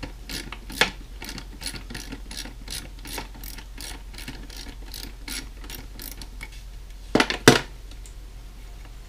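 Ratcheting driver clicking steadily, about three clicks a second, as screws are backed out of a tom drum, the drum shell amplifying the clicks. Two louder knocks come about seven seconds in.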